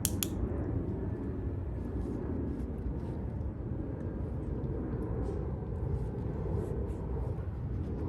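Steady low rumble of outdoor background noise, with a sharp click right at the start.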